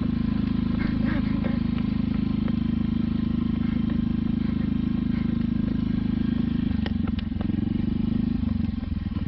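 Small scooter engine running steadily, its note shifting about seven seconds in.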